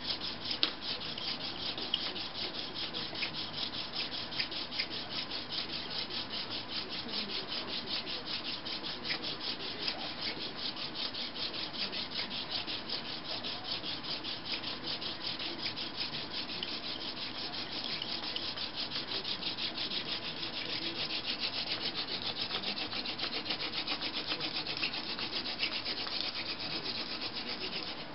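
Hand-drill friction fire: a plant-stalk spindle twirled between the palms, its tip rubbing in the notch of a cottonwood hearth board with a steady, fast rubbing of wood on wood.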